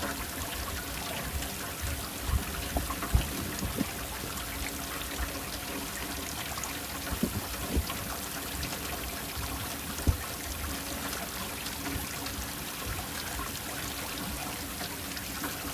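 Nungnung Waterfall, water plunging about 170 ft and rushing and splashing steadily. A few brief low bumps stand out over the rush.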